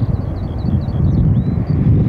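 Wind buffeting the microphone as a low, gusting rumble, with a small bird singing a quick run of high chirps and short trills over it that stops just before the end.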